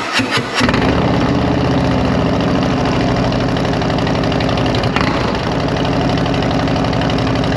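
Harley-Davidson Road Glide ST's Milwaukee-Eight 117 V-twin firing up and settling into a steady idle through TAB Performance 4.5-inch slip-on mufflers with zombie baffles. A few uneven catches in the first half second, then an even pulsing idle.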